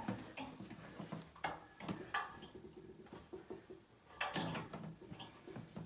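Light clicks and knocks of a radiator's top grill being fitted back on and clicked into place, a few separate taps spread out rather than a steady rhythm.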